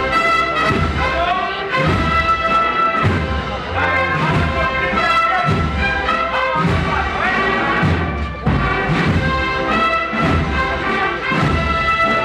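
Street procession band playing a Holy Week processional march: a brass melody over steady drum beats.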